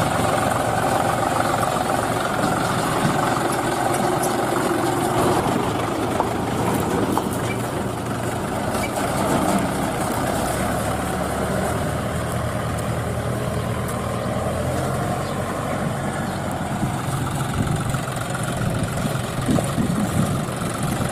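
Steady tractor-engine running sound, an even, unbroken engine note that goes with a toy New Holland remote-control tractor driving through mud.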